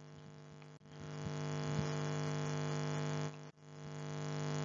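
Steady electrical hum with many overtones, fading in about a second in, cutting out briefly after about three seconds, then fading back in.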